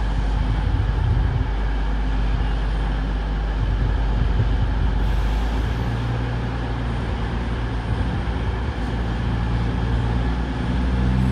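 CrossCountry Voyager diesel multiple unit, its underfloor Cummins diesel engines running with a steady low drone; the engine note shifts about six seconds in.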